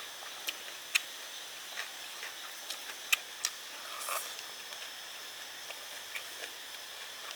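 Scattered sharp clicks and taps, the loudest about a second and three seconds in, with one short noisier scrape or crunch about four seconds in, over a steady high hiss.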